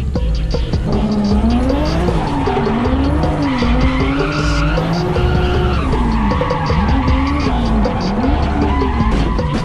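Drift car engine revving up and down over and over as the throttle is worked through a slide, with tyres skidding. Music with a steady beat runs underneath.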